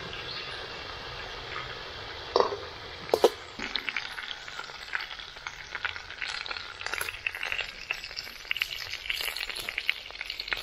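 Chicken pieces sizzling and crackling as they fry in oil in a metal kadai, while tongs and a perforated ladle turn them. There are sharp metal clinks against the pan, two loud ones about two and a half and three seconds in.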